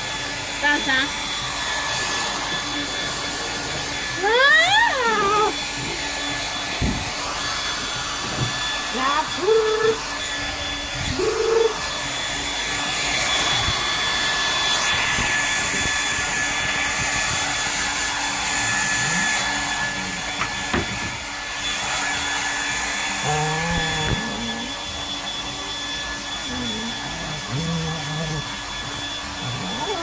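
Handheld hair dryer blowing steadily, its motor adding a constant high whine to the rush of air. A few short voice-like sounds that rise and fall in pitch come over it, loudest around four to five seconds in and again around ten seconds in.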